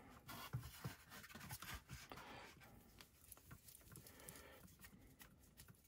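Faint clicks and scratching of hands working on the plastic suspension arm of an Arrma Mojave RC car while its droop screw is taken out; the small clicks come mostly in the first two seconds.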